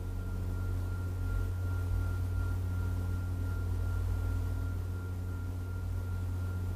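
Car engine idling, heard from inside the cabin as a steady low hum, with a thin, steady high-pitched whine over it.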